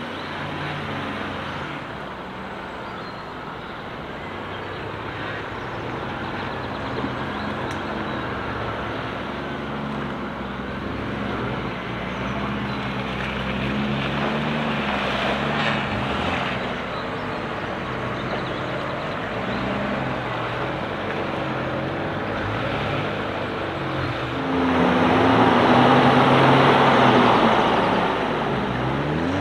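Off-road 4x4 engines running at low speed, their pitch rising and falling as the vehicles crawl over rough terrain. Near the end the engine note gets louder, revving harder for a few seconds.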